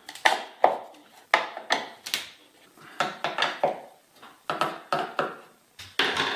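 Door hinge pins being worked out of the hinges: a string of sharp metal-on-metal knocks and clinks, coming in quick groups of two or three.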